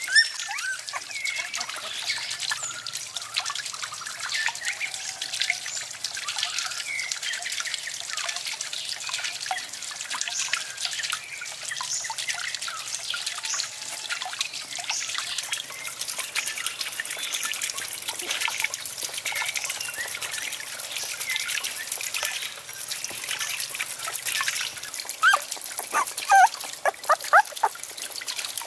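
Water trickling and splashing steadily as it spills from a small wooden water wheel into a pond, with several short high puppy whimpers near the end.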